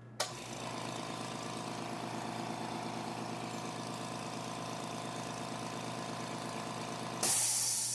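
California Air Tools air compressor switched on with a click, then running with a steady hum; the owner calls it extremely quiet. About seven seconds in the hum stops and a loud hiss of released air follows.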